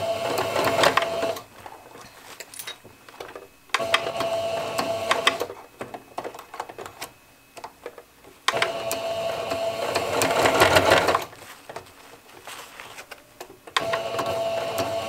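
Electric domestic sewing machine stitching through layered fabric in four short runs of one to three seconds each, stopping between them while the fabric is turned with the needle left down. A steady motor whine marks the start of each run, and small clicks and rustling of fabric handling fill the pauses.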